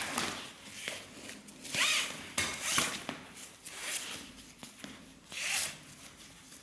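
The webbing strap of a ratchet flooring strap clamp being drawn out and through its buckle in about five separate pulls, each a short zip-like rasp.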